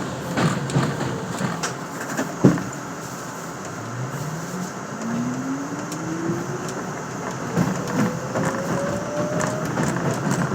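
Subway train running, with a sharp knock about two and a half seconds in; then the motor whine rises steadily in pitch as the train picks up speed, over the rattle of the wheels on the track.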